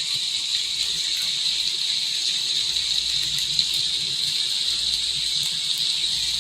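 Steady hiss of rain from a background rain-sounds track.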